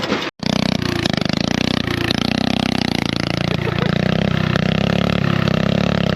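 Small engine running steadily close by, with a fast, even pulsing beat; it cuts in abruptly about a third of a second in. Most likely the riding lawn mower's engine.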